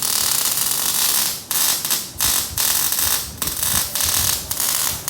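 Miller welder's arc crackling and hissing loudly in runs of roughly half a second to a second, broken by several brief stops.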